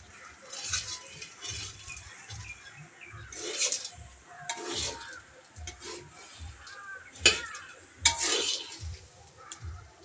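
A metal spatula scraping and stirring chickpeas as they dry-roast in a metal kadhai over a wood fire, in short repeated strokes. Sharp clinks of the spatula against the pan come about seven and eight seconds in.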